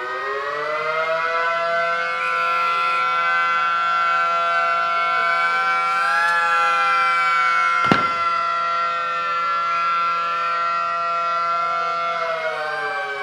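Air raid siren winding up to a steady wailing tone, holding it, then starting to wind down near the end. A single sharp crack about eight seconds in.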